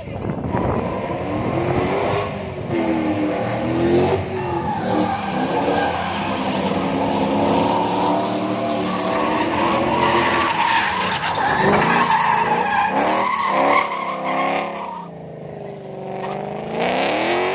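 BMW drift car's engine revving hard up and down while its rear tyres squeal and skid through a drift. The engine pitch rises and falls again and again, eases off briefly about fifteen seconds in, then climbs steeply again near the end.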